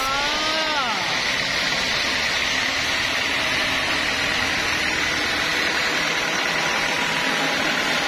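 Large band sawmill running, its blade cutting lengthwise through a teak slab with a steady, unbroken mechanical noise. In the first second a short pitched sound rises and then falls over it.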